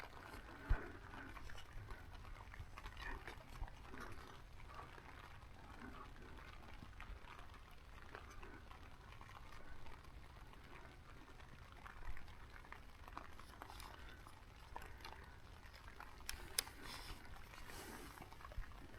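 Steady rain falling on a pop-up ground blind: a faint, even patter of drops over a low rumble, with a sharp click about a second in and another near the end.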